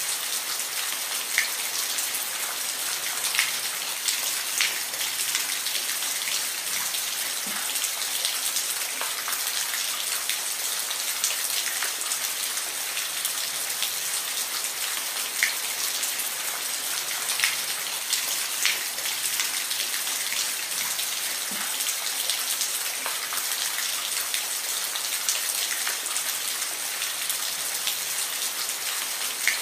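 Steady rainfall, an even hiss of rain with scattered louder drops ticking on a surface every second or two.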